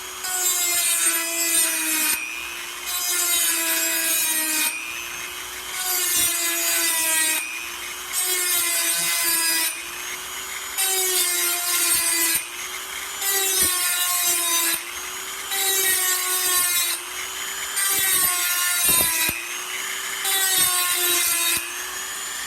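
Dremel rotary tool running at a steady high whine, its small grinding wheel pressed against the steel of a bandsaw blade about nine times in turn. Each pass is a gritty grinding burst lasting a second or two, and the motor pitch sags slightly under the load. The grinding cleans and brightens the tooth gullets, taking out stretch fractures and sap before sharpening.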